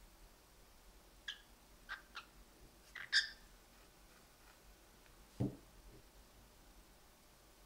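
Cockatiels giving a few short, soft chirps, the loudest about three seconds in. A single low thump follows a little past five seconds in.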